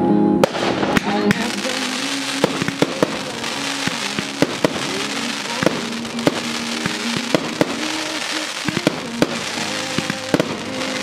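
Aerial fireworks going off: many sharp bangs of bursting shells, irregularly spaced, over a steady crackling hiss, with music playing underneath.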